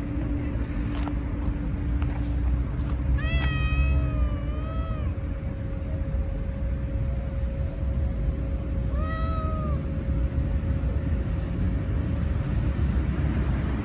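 Cat meowing twice: a long, drawn-out meow about three seconds in and a shorter one about nine seconds in, over a steady low rumble.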